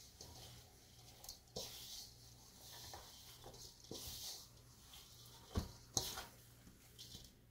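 Hands squeezing and kneading a soft, crumbly roti dough in a stainless steel bowl: faint squishing and rubbing strokes, with two sharp knocks close together near the end.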